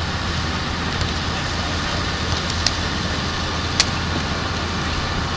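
Steady wind noise rushing on the microphone over open-air beach ambience, broken by two sharp hand slaps during beach volleyball play, about two and a half and nearly four seconds in, the second the louder.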